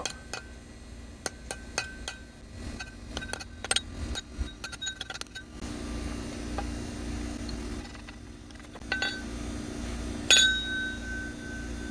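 Hammer tapping a worn bearing out of a Subaru accessory pulley: a run of quick, sharp metal-on-metal taps with a ringing tone, then a pause with a steady hum, then two more strikes near the end, the last one loud and left ringing.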